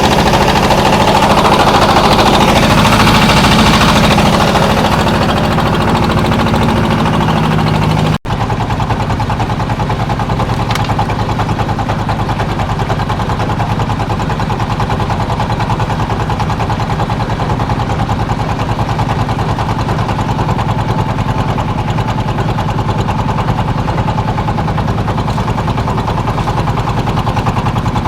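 Fishing boat's engine running steadily with a fast, even beat. There is a brief break about eight seconds in, after which it runs on the same way, slightly quieter.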